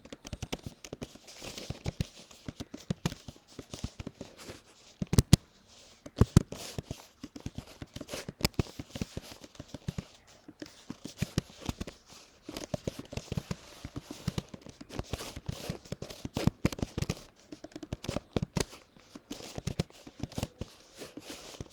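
Typing on a laptop keyboard during a timed typing-speed test: irregular key clicks in bursts with brief pauses, with a few louder clacks about five and eight and a half seconds in.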